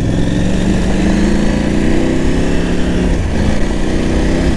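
KTM 890 Adventure R parallel-twin engine pulling under way, its pitch rising, dipping briefly about three seconds in as on a gear change, then rising again, with wind noise over it.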